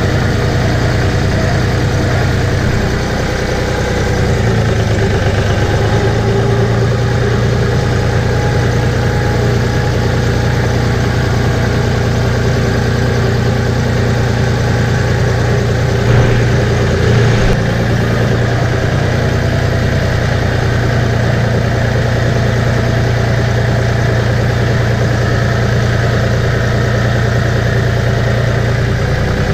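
An engine idling steadily at a constant pitch, with a brief louder knock about sixteen seconds in.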